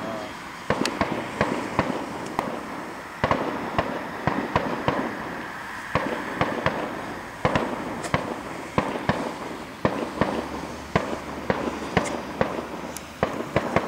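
Aerial fireworks display: shells bursting in a rapid, irregular string of sharp bangs, often several a second.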